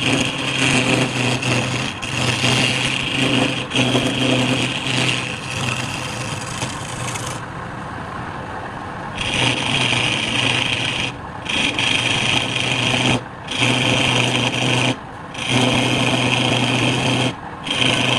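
Wood lathe running with a turning tool or abrasive rubbing and scraping against the spinning wood. The scraping thins out about halfway through, and in the second half the sound breaks off briefly several times, about every two seconds.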